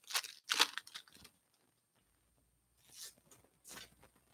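Foil wrapper of a hockey card retail pack crinkling and tearing open in two quick rough bursts within the first second, followed by two softer rustles later on.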